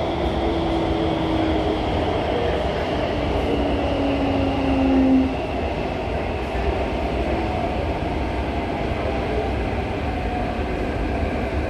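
Singapore MRT CT251 train heard from inside the carriage, running with a steady low rumble. Its motor whine falls steadily in pitch for about five seconds, then cuts out, leaving the rumble.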